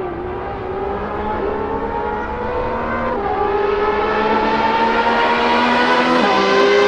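Race car engine accelerating through the gears, its pitch climbing steadily and dropping back at a gear change about three seconds in and again about six seconds in.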